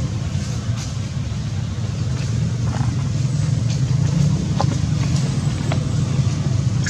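Steady low rumble of an engine running, with a few faint short clicks over it.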